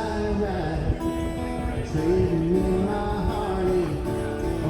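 Live music: a singer with guitar accompaniment, a sung melody held over steady strummed or plucked chords.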